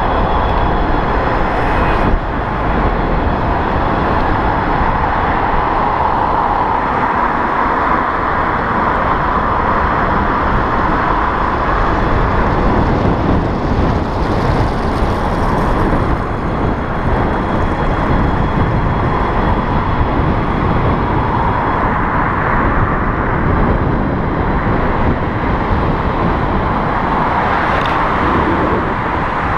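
Steady rushing wind and road noise from riding an electric bicycle at speed, with a sharp click about two seconds in.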